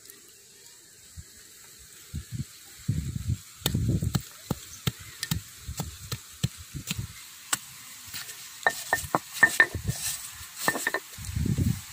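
Stone roller crushing lumps of jaggery on a flat stone grinding slab. After a quiet start it rumbles low as it rolls back and forth, and the breaking lumps give many sharp cracks and clicks, thickest near the end.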